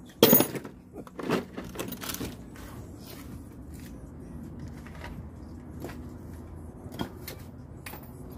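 Metal clanks and clinks of hand tools and parts being handled during ball-joint work on a truck's front suspension. The loudest clank comes just after the start, two more follow about a second and two seconds in, then lighter scattered clicks over a low steady hum.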